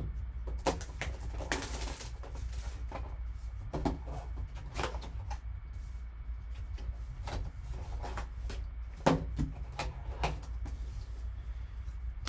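A cardboard trading-card box being opened and the card inside handled: scattered taps, clicks and rustles, with a longer scrape or tear about two seconds in, over a steady low hum.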